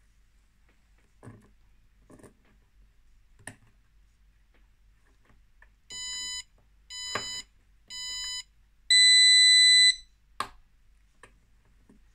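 Capacitive-discharge spot welder with an Arduino controller: a few soft clicks as the welding probes are set on a thin metal strip, then its buzzer gives three short beeps and one longer, louder, higher beep, followed by a single sharp snap as the capacitors discharge through the strip in a 1 ms weld pulse.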